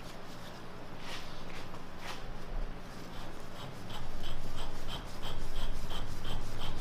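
Threaded rod gland of a 2-inch-bore tractor hydraulic cylinder being spun off by hand: metal threads rubbing and scraping. There are a few scattered clicks, then from about halfway a light, regular ticking about three times a second as the gland turns.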